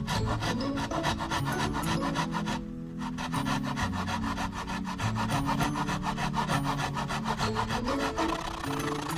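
Wood being worked by hand in rapid back-and-forth strokes, a saw or sandpaper rasping across a board, with a short pause about two and a half seconds in. Background music plays underneath.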